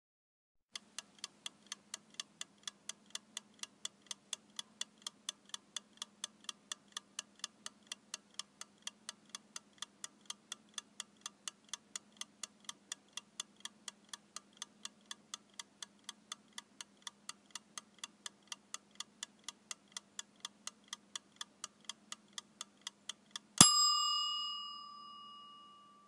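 Mechanical kitchen timer ticking evenly at about three ticks a second, then its bell rings once near the end as the time runs out, the ding ringing on and fading away.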